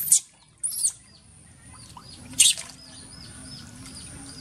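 Baby monkey squeaking in a rapid run of short, high calls, about three or four a second, while being bathed, with three louder sharp bursts of splashing water.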